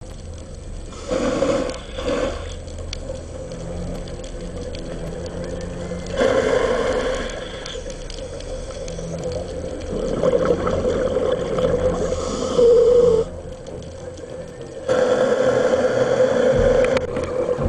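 Underwater sound through a compact camera's own microphone: a steady low rumble, broken four or five times by loud gurgling bursts of a scuba diver's exhaled bubbles from the regulator.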